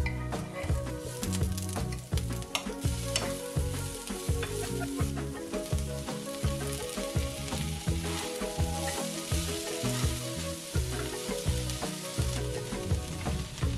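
Sliced onion and chopped bell peppers sizzling and crackling as they fry in hot oil in a frying pan, with pieces tipped in from a wooden board. Background music with a steady beat runs underneath.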